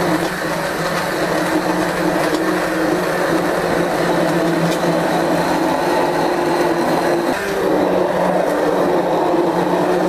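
Immersion blender running on high speed, puréeing butternut squash soup in the pan: a loud, steady motor hum whose pitch wavers briefly about seven seconds in.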